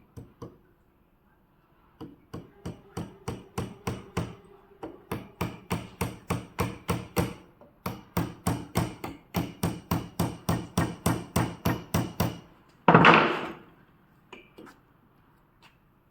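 A hammer striking in a steady, rapid run of even blows, about three a second, with a short break about eight seconds in. Near the end there is one louder, longer noisy hit.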